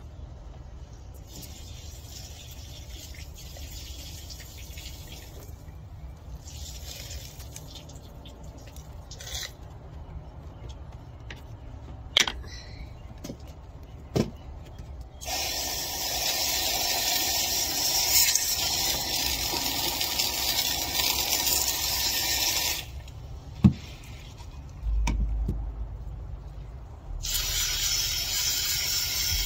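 Water from a garden hose spray nozzle hissing and splashing as a small plastic fish tank is rinsed out. There are two loud sprays, one of about seven seconds in the middle and a shorter one near the end. Earlier there are quieter bursts of water, with a few sharp knocks in between.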